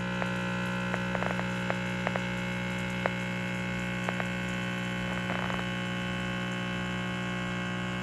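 Kflow portable electric coffee maker's small pump running with a steady hum, with scattered light ticks.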